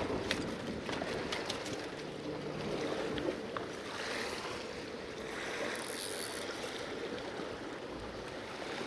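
Sea water washing and lapping against rocks, a steady wash with a few small sharp clicks in the first second.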